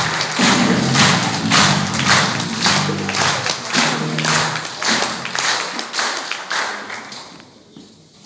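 Audience clapping in a steady rhythm, about two claps a second, over music. Both fade out over the last two seconds or so.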